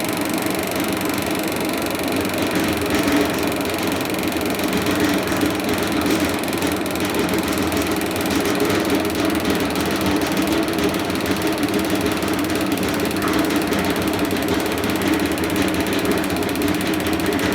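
Maxant honey extractor's electric motor and pulley-driven basket running steadily, turned down on a variable speed controller, with a fast mechanical clatter. The motor has a ticking whose cause the owner has not yet found.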